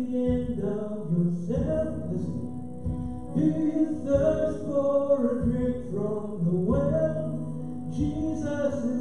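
Worship song: voices singing over instrumental accompaniment.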